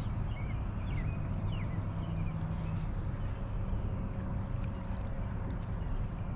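Steady water and boat-hull noise of a fishing boat on a river, with a low hum through roughly the first half and a few short high chirps in the first couple of seconds.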